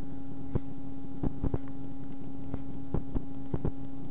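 Steady hum with a handful of irregular sharp clicks and pops over it: the recording's own background noise, also present under the narration.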